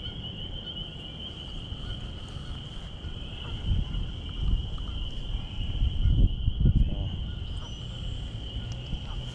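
A steady, high-pitched chorus of calling creatures, with low rumbles from wind on the microphone swelling in the middle.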